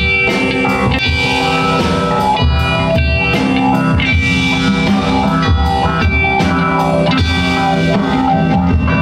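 A live rock band playing an instrumental passage, with electric guitar over bass guitar and a drum kit keeping a steady beat.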